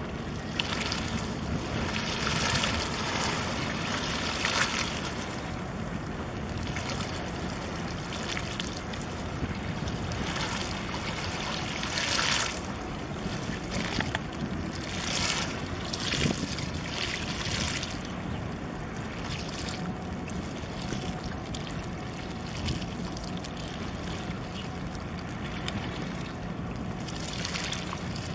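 Wind gusting on the microphone and water washing, over a steady low rumble from boat engines. Rushing surges come and go, strongest in the first few seconds and again in the middle.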